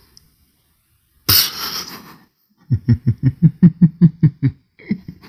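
A man bursts out laughing: a sudden breathy outburst about a second in, then a run of quick voiced 'ha' pulses, about six a second, that trails off near the end.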